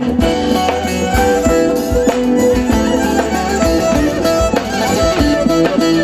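Turkish folk music played live by a band: a bağlama (saz) plucked over a bowed kabak kemane, with a drum marking a steady beat.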